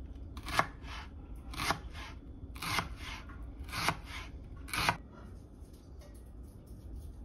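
Chef's knife slicing through a halved white onion onto a plastic cutting board: five slicing strokes about a second apart.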